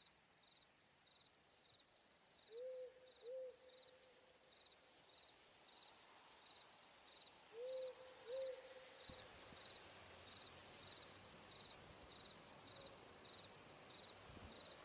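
An owl hooting twice, each time a pair of short hoots a few seconds apart, over faint, regular cricket chirping at about two chirps a second.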